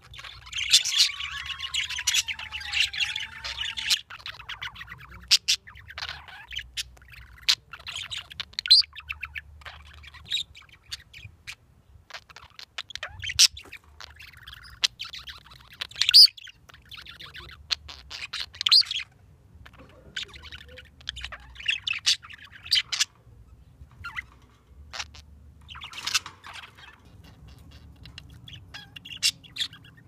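English budgerigars chirping and chattering in short, irregular calls and squawks.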